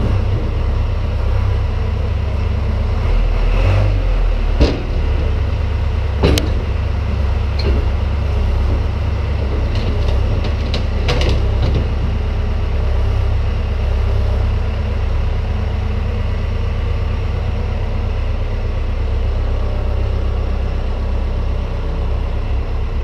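Forklift engine running steadily while it lifts a hay end roller off a flatbed and carries it away, with a few sharp knocks in the first half.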